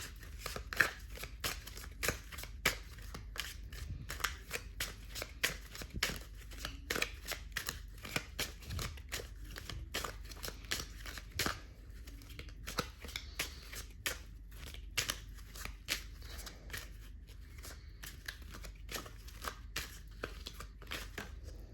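A deck of tarot cards being shuffled by hand: a run of soft, irregular card flicks and taps, two or three a second.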